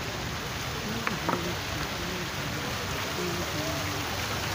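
Water fountain splashing steadily, with faint voices of people talking in the background.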